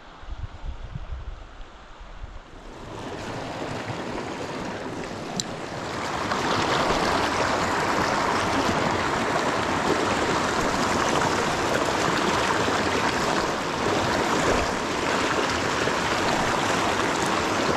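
Fast river water rushing over rocks, building up about three seconds in and then holding loud and steady. A few low bumps come just at the start.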